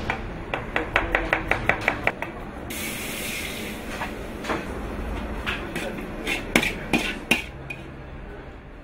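Kitchen knife chopping onion on a wooden cutting board in quick, even strokes, about five a second. Then a short hiss of minced meat sizzling on a hot metal griddle tray, and a few scattered knocks of knife work.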